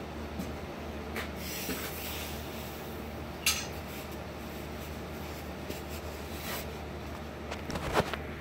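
Scattered light clicks and clinks of small metal parts being handled on a workbench, over a steady low hum, with one sharper click about three and a half seconds in and a cluster of knocks near the end.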